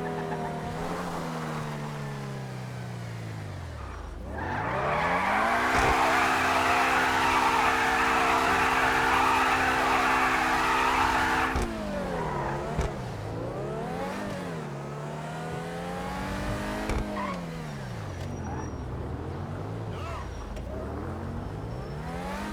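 Mazzanti Evantra Millecavalli's twin-turbo LS7 V8 revving up and down repeatedly. From about four to eleven seconds in, the engine holds a steady high pitch under a loud hissing noise, then it goes back to rising and falling revs.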